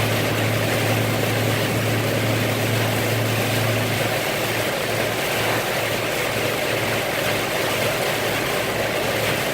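Car interior noise while driving in heavy rain: a low, steady engine hum under an even hiss of rain and tyres on the wet road. The hum weakens about four seconds in.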